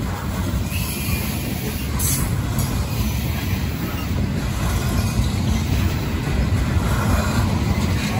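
Aluminum coal gondola cars of a freight train rolling past, a steady low rumble of the wheels on the rails.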